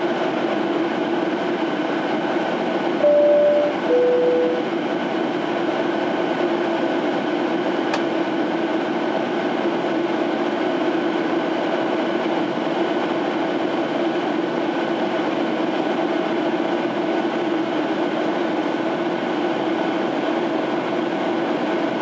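Steady cabin noise of a Boeing 737-800 in flight: airflow rush and the hum of its CFM56-7B engines, heard from a window seat beside the engine. About three seconds in, a two-tone high-low cabin chime sounds.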